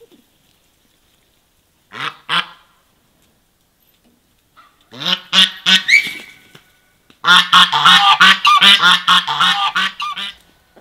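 Domestic geese honking loudly: two calls about two seconds in, a cluster of calls around five to six seconds, then a rapid run of about four honks a second for some three seconds.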